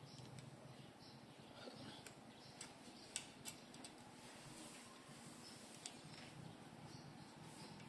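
Near silence with a few faint, scattered clicks as fingers handle and turn the bicycle stem's top cap and expander plug bolt.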